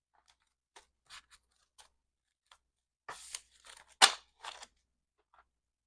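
Paper banknotes being handled and shuffled: short crisp rustles, soft at first, then a busier patch of crackling about three seconds in, with one sharp snap about four seconds in.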